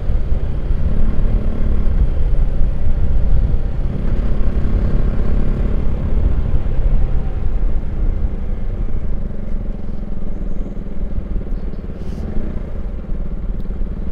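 KTM RC motorcycle's single-cylinder engine running under way on a ride, mixed with wind rushing over the microphone. The engine note shifts a little through the bends and the sound eases off somewhat past the middle.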